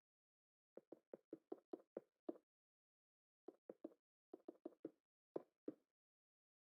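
A series of short, dull knocks in irregular runs: about seven fairly quick knocks, a pause of over a second, then about nine more.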